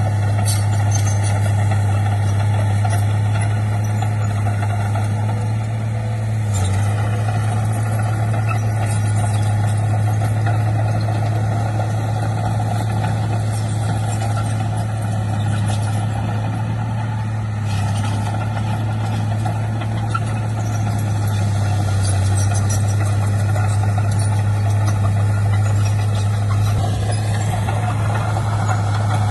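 Heavy diesel machinery engine running steadily with a deep, even drone, with brief small shifts in pitch and level about a quarter of the way in and again later.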